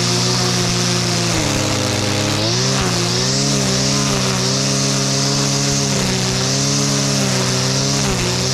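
Shindaiwa two-stroke brushcutter (whipper snipper) running at high revs while its line head trims grass along a path edge. The revs sag about a second and a half in, pick back up a second later, then waver a little as the head works along the edge.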